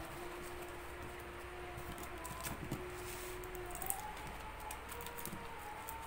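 A small knife slitting packing tape on a cardboard box: light scratches and scattered small ticks of the blade on tape and cardboard. Faint long, wavering held notes of a distant call to prayer sound in the background.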